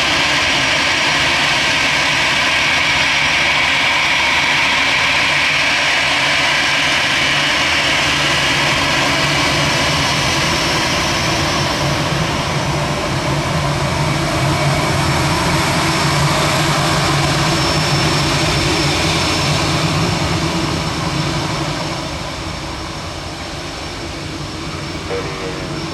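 Airbus A319 jet engines running at high power for takeoff: a loud, steady roar with a high whine over a low rumble. It fades noticeably about twenty seconds in.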